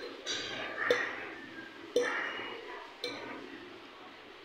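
Metal clinking in a workshop: three sharp taps about a second apart, each ringing briefly.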